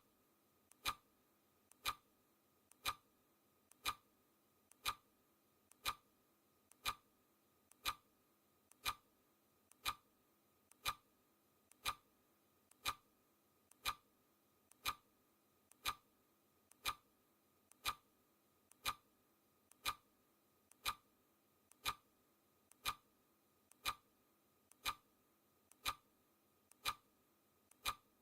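Clock ticking sound effect marking each second of a countdown: one steady tick a second, each a faint click just before a louder one.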